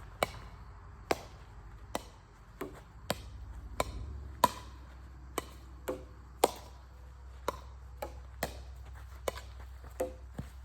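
Axe chopping wood: a series of sharp strikes at uneven spacing, roughly one a second, some leaving a brief ring.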